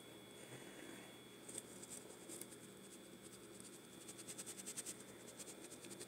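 Faint rapid ticking of a spice shaker bottle being shaken over raw chicken breasts, in a short run about a second and a half in and a steadier run from about four seconds on.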